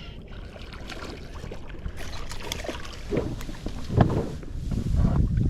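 Knocks and handling noise on a bass boat while a hooked bass is reeled in and landed: scattered clicks, a loud thump about four seconds in, and a low rumbling noise growing louder near the end.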